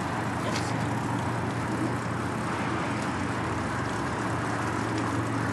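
Steady rushing noise of road traffic on the highway alongside, mixed with wind and rolling noise from riding a bicycle, over a constant low hum.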